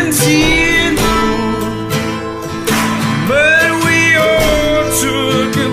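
A song: a man singing long, wavering notes over guitar and band accompaniment.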